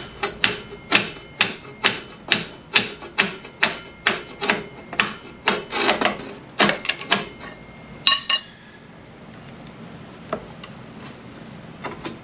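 Pry bar grinding and scraping against a seized front brake caliper on a 1982 Honda Goldwing GL1100, metal on metal in quick repeated strokes about two or three a second, stopping about eight seconds in after a last louder pair, then only a few faint knocks. The caliper pistons are frozen and won't retract.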